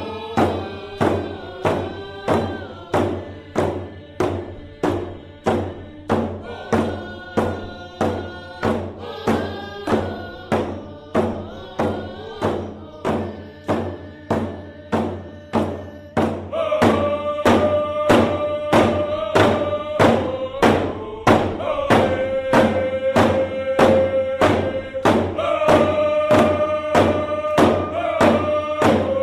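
Grand Ronde canoe song: voices singing a chant over a steady drum beat, about three beats every two seconds. The singing grows stronger about halfway through.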